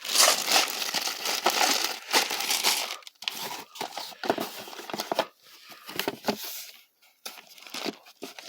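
Plastic packaging crinkling and rustling as items are rummaged through in a box: steady and loud for about the first three seconds, then broken into shorter rustles and clicks.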